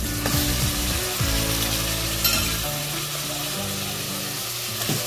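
Marinated chicken pieces sizzling steadily in hot oil with sautéed onion and garlic in a metal cooking pot as they are stirred. A brief sharp sound from the spoon against the pot comes a little over two seconds in.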